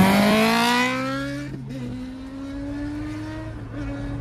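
Kawasaki ZX-10R's inline-four engine accelerating hard, its pitch climbing quickly and fading after about a second and a half as the bike pulls away. Beneath it, the Mahindra Thar's engine drones steadily inside the cabin, its pitch creeping up under acceleration.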